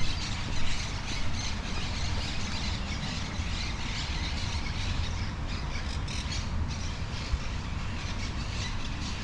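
A flock of birds squawking and chattering continuously, over a low steady rumble.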